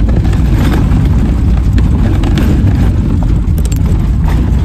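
1999 Chevy Tracker driving along a gravel dirt track: a loud, steady low rumble of engine, tyres and wind buffeting a camera mounted on the hood.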